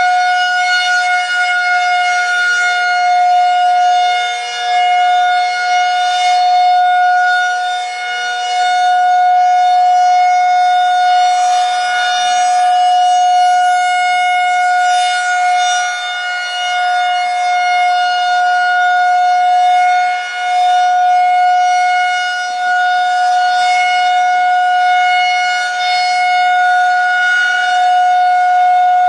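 Federal Signal 2001-130 rotating outdoor warning siren sounding its steady Alert tone during a test: one loud held pitch with a stack of overtones. The sound swells and fades every few seconds as the horn turns.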